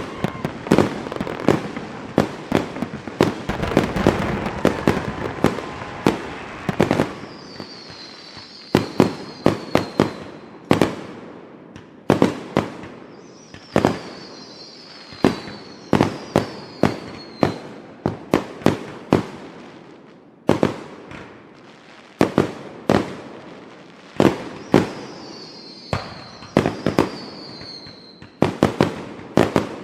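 Fireworks going off: a dense run of bangs and crackle for the first several seconds, then separate sharp bangs about every second, with short high whistles falling in pitch between some of them.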